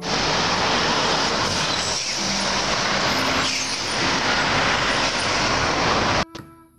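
Road traffic going by, with a tanker semi-trailer truck passing among cars: a steady rush of engine and tyre noise. It cuts off suddenly near the end.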